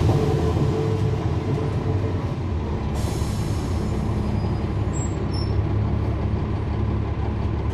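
Cummins ISL9 inline-six diesel engine of a NABI 40-SFW transit bus running steadily. About three seconds in comes a sudden hiss of air from the bus's air brake system, which then fades, and a few brief faint high squeaks follow a couple of seconds later.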